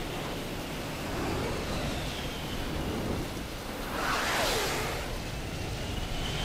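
Steady rushing airflow and engine noise inside a Red Arrows Hawk jet's cockpit in flight. About four seconds in it grows louder, with a whine that sweeps down in pitch.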